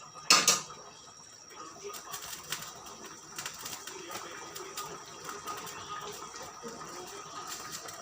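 A sharp metal clank of cookware about a third of a second in, then a covered pot of chicken simmering on low heat with a faint steady hiss and light crackling.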